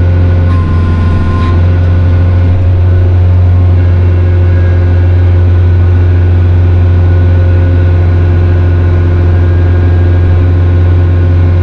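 Kioti RX7320 tractor's four-cylinder turbo diesel engine running steadily, a loud low drone heard from inside the closed cab as the front loader works against a brush pile.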